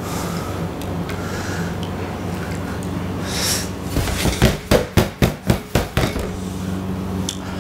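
A quick run of about eight sharp metallic knocks on a stainless steel pan, around four a second, lasting about two seconds and starting about four seconds in, over a steady low hum.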